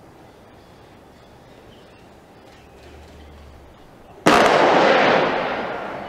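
A rifle volley of a three-rifle salute: the rifles fire together as one sharp, loud crack about four seconds in, which echoes and dies away over about two seconds.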